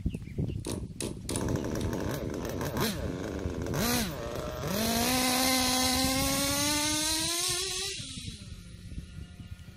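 Kyosho KE25 nitro engine in an RC truggy during break-in: idling with a couple of short throttle blips, then its pitch climbs steadily for about three seconds as the truck accelerates away. Near the end the throttle comes off and the engine drops back to a quieter idle.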